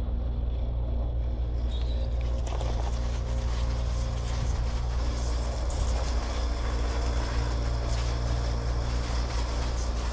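Garden hose spray nozzle turned on about two seconds in, spraying a steady hiss of water onto potted plants. A steady low hum runs underneath.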